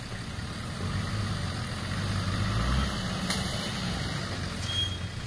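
Nissan Patrol four-wheel drive's 4.2-litre engine idling at low revs, a steady low hum that swells a little near the middle.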